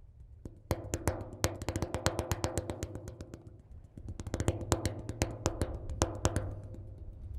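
Percussion music: quick, sharp clicking hits like wood blocks or sticks over sustained low tones, the hits thickening from about a second in.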